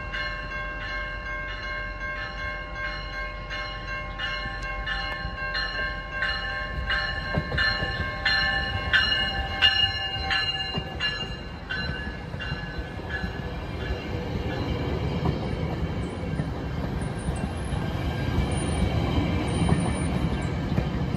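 A GO Transit bilevel commuter train's warning bell rings in a steady, regular rhythm as the train approaches; it fades out about halfway through. The rumble of the bilevel coaches rolling past then grows louder, with brief high-pitched wheel squeal near the end.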